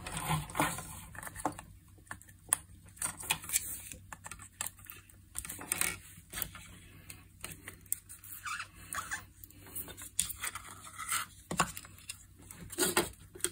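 Irregular clicks, taps and rustles of hands handling projector electronics on a workbench: a VGA cable being plugged into the main circuit board and the LCD panel with its ribbon cable being moved about.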